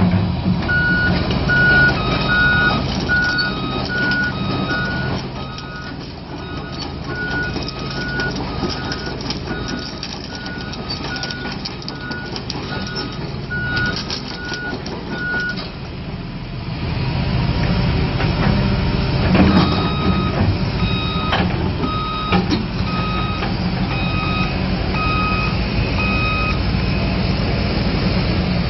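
Hitachi ZX200-3 excavator's Isuzu four-cylinder diesel running under load while its travel alarm beeps steadily, a little over once a second. The beeping stops for a few seconds past the middle, the engine grows louder with a few knocks, then the beeping resumes at a slightly lower pitch.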